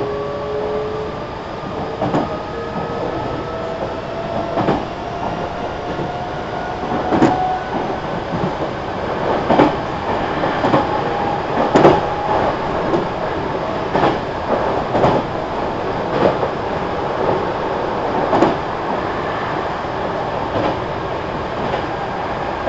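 Meitetsu 3300 series electric train running: its motor whine rises slowly in pitch as the train gathers speed, then holds steady. The wheels click over rail joints about once a second.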